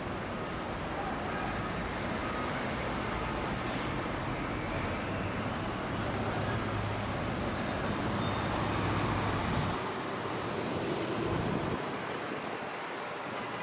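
Street traffic: a steady rumble of passing cars and tyres, growing louder to a peak about nine seconds in as a vehicle passes close, then thinning out.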